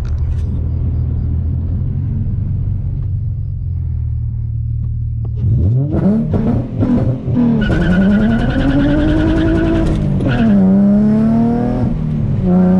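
Infiniti G35 coupe's V6 heard from inside the cabin: steady low running, then about five seconds in a hard launch, the revs climbing with a hiss of spinning tyres, dropping at a gear change about ten seconds in and climbing again. The launch tests for wheel hop, which is still there: the car is jumping around under power.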